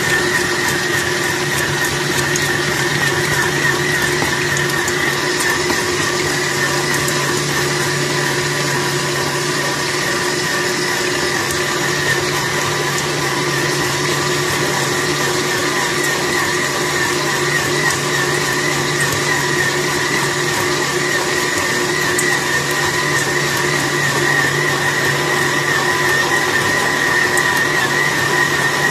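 Electric stand mixer running steadily, its motor whining without a break as it kneads donut dough in a stainless steel bowl.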